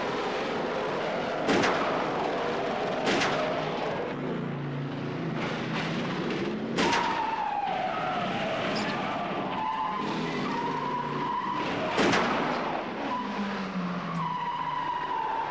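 An action-film soundtrack playing in a cinema: cars with screeching tyres and four sharp bangs, and a falling whine about halfway through.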